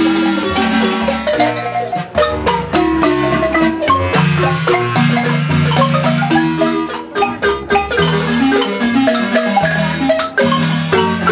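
Wooden marimba played by three players at once. A quick struck melody runs over held low notes.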